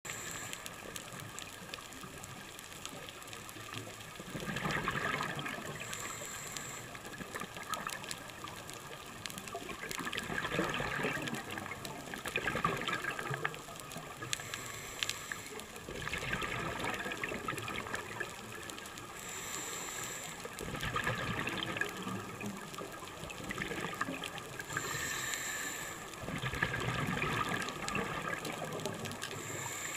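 Scuba diver breathing through a regulator underwater: a bubbling rush of exhaled air swells and fades every few seconds.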